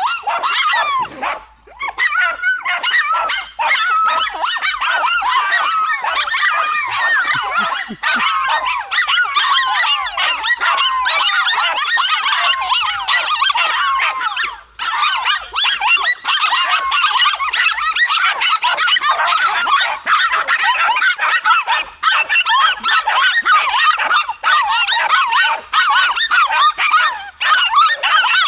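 Several dogs barking and yelping at once, high-pitched and overlapping almost without a break: a pack of dogs baying at a cornered lizard.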